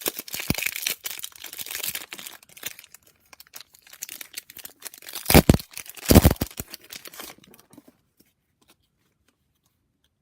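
A trading-card pack's foil wrapper being crinkled and torn open, with two short, loud rips about five and six seconds in.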